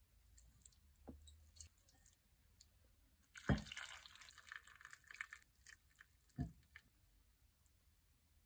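Hot broth poured from a pot over rice noodles in a bowl: a knock about three and a half seconds in, then about two seconds of splashing liquid, and another knock about three seconds later.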